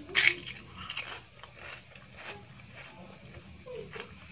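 Papad bitten with a loud crunch just after the start, then chewed with smaller crackly crunches.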